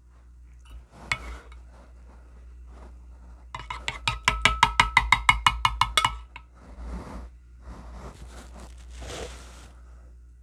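A rapid burst of about fifteen identical clicks, about six a second, lasting some two and a half seconds, typical of a phone camera shutter firing in burst mode. Softer handling knocks and rustles come before and after.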